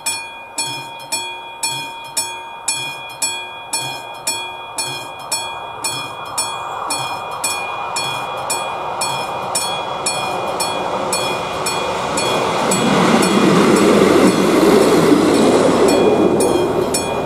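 The mechanical bell of an AŽD 71 level-crossing signal strikes steadily, just under twice a second. From about six seconds in, the rumble of a train grows and drowns the bell, loudest near the end.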